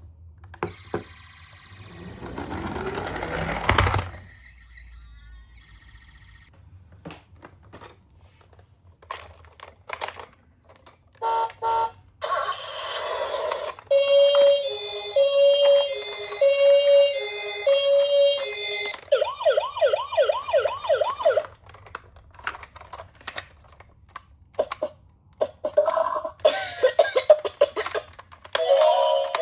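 Toy ambulance minicar's electronic siren sounding in several patterns: a short noisy burst, then a two-tone hi-lo alternation, then a fast warbling wail, which comes back near the end. In the first few seconds a rising whir builds and cuts off, and there are scattered clicks.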